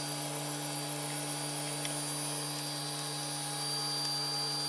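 Protomaker Black Sprint FDM 3D printer running: a steady electrical hum with a few fixed higher whines.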